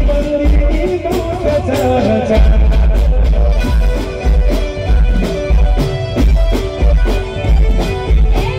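Live garba dance music played loud through a PA: drums keeping a heavy, even dance beat under a keyboard melody, with little or no singing.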